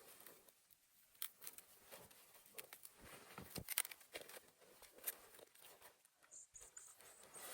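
Faint, scattered crunches and clicks at irregular intervals, with a short run of quick ticks about six seconds in.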